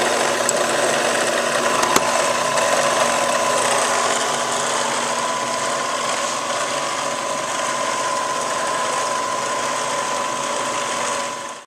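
Bridgeport knee mill's variable-speed head running, a steady mechanical whir with a constant whine over it; it cuts off suddenly at the end.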